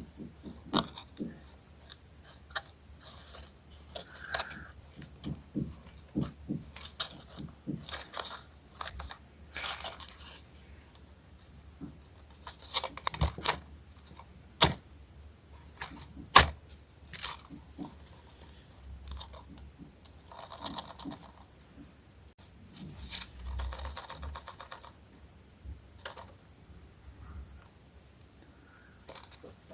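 Handmade paper pieces being handled: scattered rustles, crinkles and light taps, a little louder around the middle.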